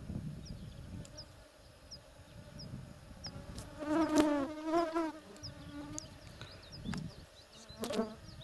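A flying insect buzzing close by: its hum wavers up and down in pitch for about two seconds from about four seconds in, with a shorter buzz near the end. A faint high chirp repeats about every half second throughout.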